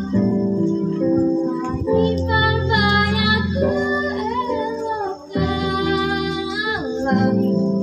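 A teenage girl singing a slow melody into a microphone over musical accompaniment, holding long notes that bend in pitch, with a short pause between phrases about five seconds in.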